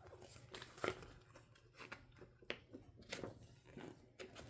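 Faint rustling and small clicks of paper and card being handled: album inclusions and a folded poster being picked up and moved.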